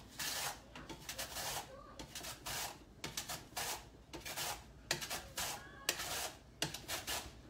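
Red onion in a hand guard pushed back and forth over an Epicure 4-in-1 mandoline's 3x3 mm julienne blade: about a dozen scraping cutting strokes in a steady rhythm.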